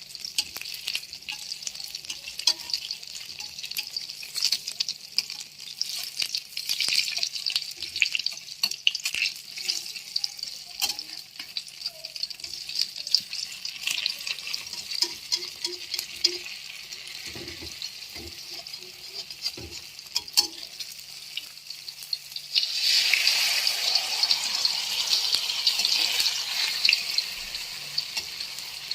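Hot oil sizzling and crackling in a pan as a cha-om (acacia shoot) omelette fries, with scattered small clicks. The sizzle swells louder for about four seconds near the end.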